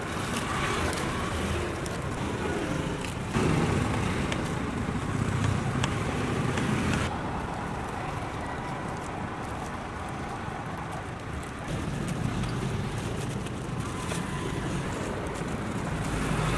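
Steady street traffic noise from passing vehicles, with faint, scattered clicks of a knife against a wooden cutting board as fruit is sliced. The background shifts abruptly a few times.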